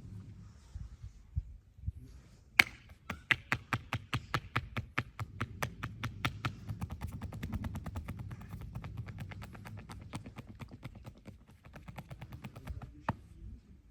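Percussive massage: hands slapping and chopping on the body in a fast, steady rhythm, about four slaps a second and quickening to about six. It starts with one sharp slap a couple of seconds in and ends with another sharp slap near the end.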